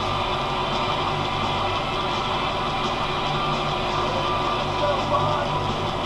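Valtra N91 tractor's diesel engine running steadily while ploughing, heard through a camera on the front loader.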